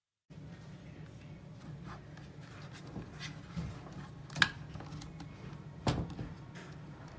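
Scattered clicks and knocks of something being handled, over a steady low hum; the sharpest knock comes about four and a half seconds in and another about six seconds in.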